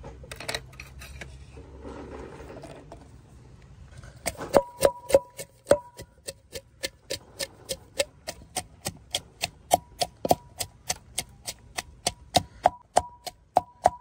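Ginger and garlic pounded in a mortar with a pestle: sharp, regular strikes about three a second, each with a short ringing tone. They start about four and a half seconds in, after quieter noise.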